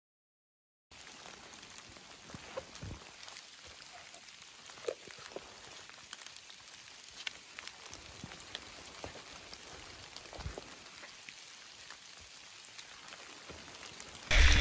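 Faint, irregular patter of drops and small ticks over a soft hiss, after a silent first second.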